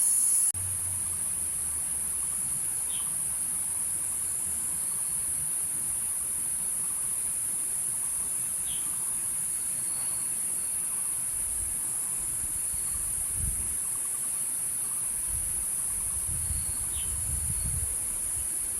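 Cicadas singing in a steady, high-pitched chorus, with three short faint chirps over it and a low rumble coming and going in the second half.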